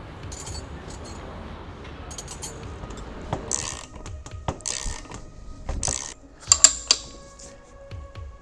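Metal tools and parts clinking and clattering in a workshop, with sharp metallic clicks and a few ringing strikes from about three seconds in, the loudest near the end. Before that there is a steady rushing noise, with background music throughout.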